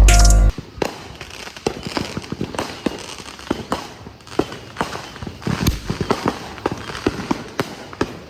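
A music bed cuts off about half a second in, then fireworks pop and crackle in an irregular string of sharp reports, with one louder bang a little past the middle.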